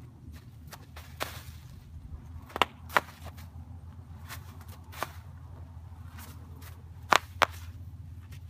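Bubble wrap popping under a horse's hooves as it walks across the sheet: about six sharp, loud pops at uneven intervals, two of them coming in quick pairs.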